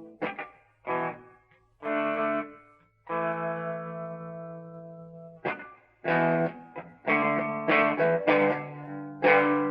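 Electric guitar played through a Wizz Distortion pedal: a few short, choppy chord stabs, then a chord left to ring and fade for about two seconds. After that comes a run of distorted chords strummed in a rhythm.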